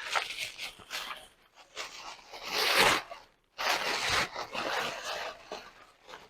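Packaging being torn and rustled open by hand as a tarot deck is unwrapped, in several scratchy bursts, the longest from about three and a half to five and a half seconds in.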